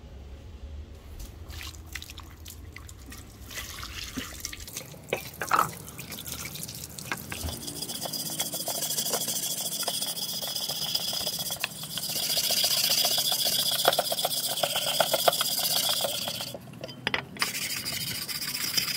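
Water running and splashing, after a few knocks in the first seconds; the flow stops abruptly near the end and starts again a moment later.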